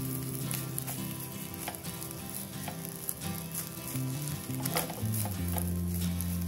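Fried rice sizzling in a frying pan as a slotted spatula stirs and scrapes through it, with a few sharper scrapes about half a second, two seconds and just under five seconds in. Soft background music with low held notes runs underneath.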